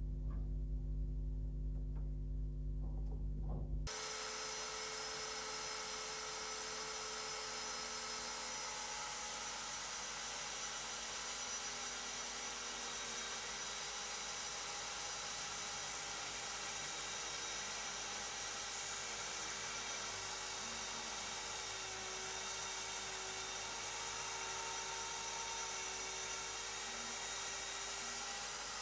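Narrow-belt power file running with a steady high whine as the rusty, pitted steel blade of a Mosin-Nagant bayonet is ground against the belt to take out the pitting. It starts about four seconds in, after a low steady hum.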